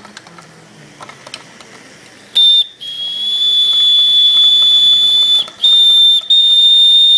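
Steam whistle on the boiler of a 70-year-old model stationary steam engine, blown to let off steam pressure. It gives a short high toot about two and a half seconds in, then a long, steady, loud high-pitched whistle broken twice by brief gaps.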